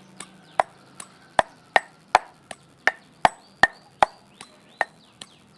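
A garlic clove being pounded with a pestle in a mortar, crushed until fine: a steady run of sharp knocks, about two and a half a second, some louder than others.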